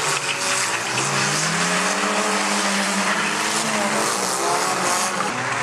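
Several micro banger racing cars' small engines revving, their pitch rising and falling and overlapping, over a steady hiss of tyres and track noise.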